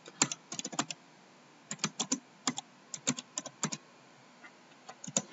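Computer keyboard typing: several quick runs of key clicks with short pauses between them as a search phrase is typed.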